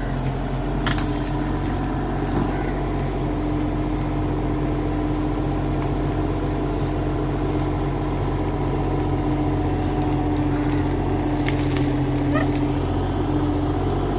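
Kubota mini excavator's diesel engine running steadily, with a few brief clicks and knocks.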